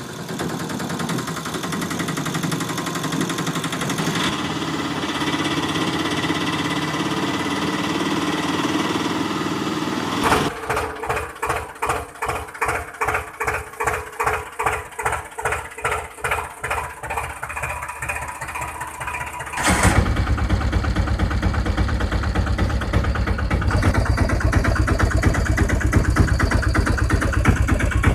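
Engine sound effects laid over toy vehicles: an engine running steadily for about ten seconds, then a rhythmic tractor-style chugging at about two beats a second, then from about twenty seconds in a louder, deeper steady engine drone.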